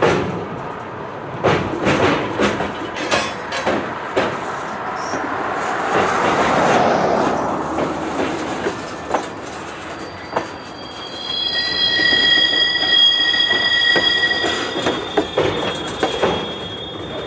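Freight cars, a tank car and a covered hopper, rolling slowly over yard track, with irregular clacks from the wheels over rail joints and switches. From about ten seconds in a steady high-pitched squeal from the wheels comes in and holds for several seconds.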